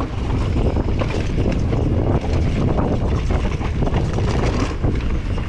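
Wind buffeting the microphone of a mountain bike's onboard camera, over the rumble and small knocks of the Vitus Sommet's tyres and frame on a rough dirt trail as it rides downhill at speed.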